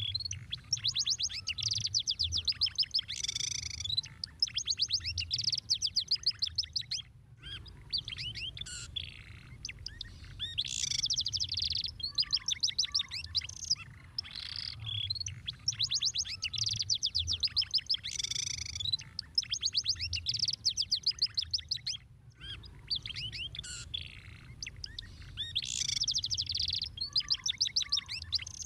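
Canary song: long rapid trills and rolls of fast repeated high notes, in phrases that break off and start again every few seconds, over a faint low hum.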